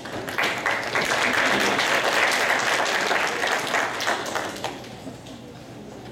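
Audience applauding, rising quickly and dying away after about five seconds.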